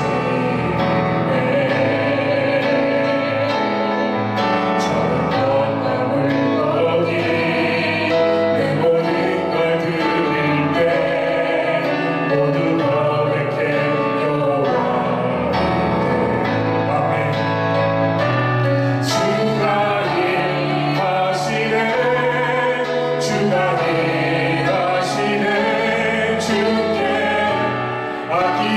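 A woman and a man singing a Korean worship song together into microphones over a steady instrumental accompaniment, with a few light percussive hits in the second half.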